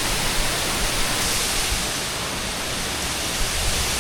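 Loud, steady roar of rushing water from a large waterfall.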